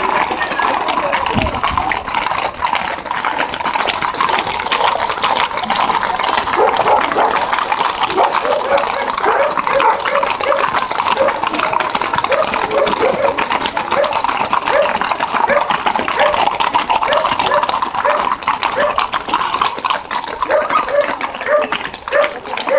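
Hooves of a column of horses clopping on asphalt, an uneven patter of two or three clops a second, under a steady rushing hiss.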